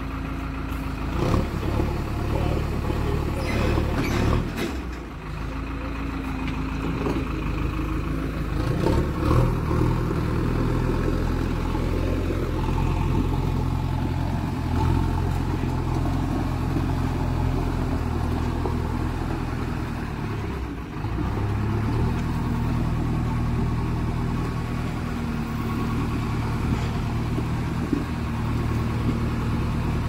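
JCB 3DX backhoe loader's diesel engine running under changing load, its revs rising and falling as the machine works, with a few short knocks.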